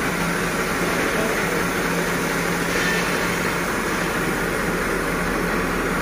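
Tractor-mounted spray machine running: a steady engine and pump hum under the hiss of a high-pressure water jet from the hand spray gun.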